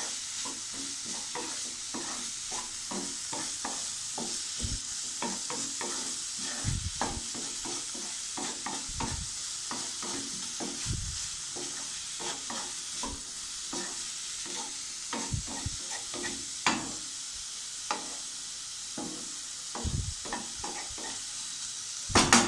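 Diced potato, onion and cabbage sizzling in oil in a nonstick wok while a wooden spatula stirs them, clattering against the pan in quick irregular taps over a steady hiss. A few louder knocks of the spatula come toward the end.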